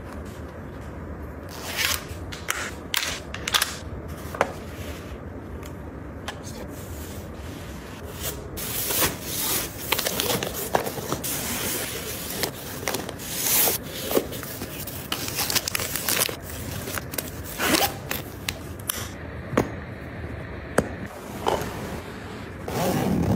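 Close-up handling sounds: scattered sharp clicks and taps of items being picked up and set down, with stretches of rustling in the middle, over a steady low hum.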